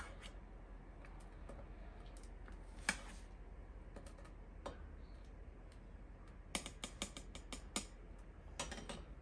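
Light clicks and taps of a white ladle against a steel pot and a cup as hot atole is ladled out. A few come singly at first, then a quick run of taps about two-thirds of the way through and a few more near the end.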